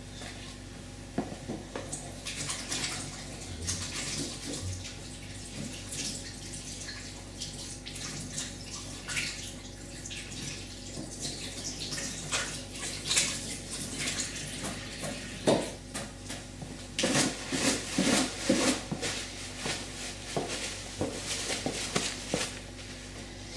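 A tap running into a sink while hands are washed, a steady splashing hiss. Several louder knocks and rustles come in the second half.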